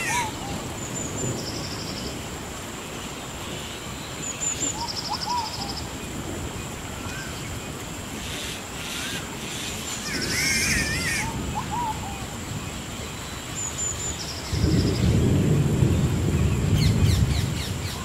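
Rainforest thunderstorm ambience: a steady hiss of rain with wavering bird calls and short repeated high trills over it. Near the end a low roll of thunder rumbles for about three seconds.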